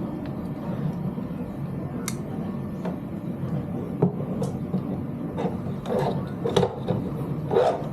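A few light knocks, clicks and rubbing sounds over a steady low hum, the louder ones in the second half.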